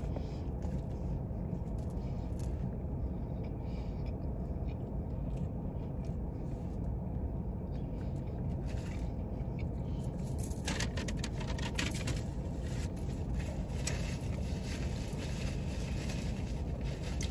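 Steady low rumble inside a parked car. From about ten seconds in, a run of light clicks and crackles from chewing and handling food comes in over it.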